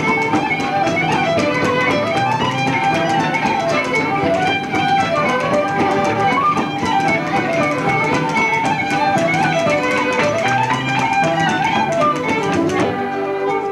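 Irish traditional session music: several musicians playing a lively tune together, the melody in quick, ornamented runs over a steady accompaniment.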